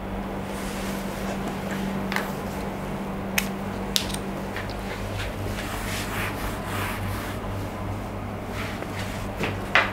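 Whiteboard eraser rubbing across the board in strokes, mainly in the second half, over a steady low electrical hum, with a few short clicks.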